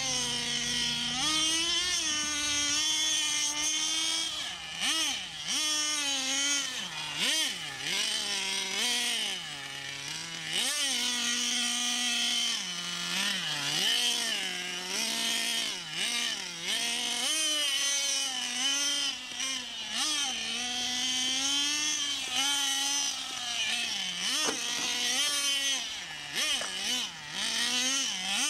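Nitro (glow-fuel) engine of a radio-controlled Subaru rally car revving hard and falling back over and over as it is driven, its pitch climbing on the throttle and dropping between bursts.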